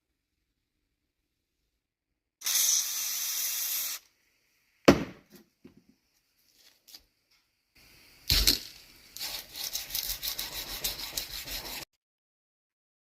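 A short hiss of aerosol spray, then a couple of knocks, then sandpaper rubbed back and forth by hand on a steel knife blade in quick strokes, about four a second.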